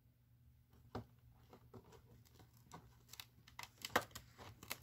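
Cardboard advent calendar door being pried and torn open by hand: faint scattered clicks and rustles of card, growing busier after about three seconds.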